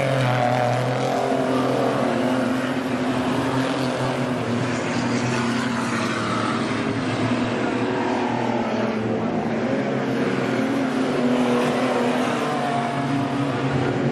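Several stock car engines running on a dirt oval, their pitch wavering up and down as the cars circle.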